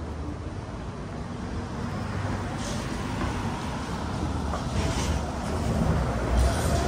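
Street traffic with a large vehicle approaching, its rumble growing louder; near the end the whine of an electric trolleybus motor comes in as one steady, slightly falling tone.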